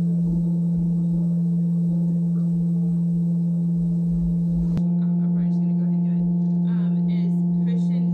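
Electric cream separator's motor running, a loud steady hum at one pitch.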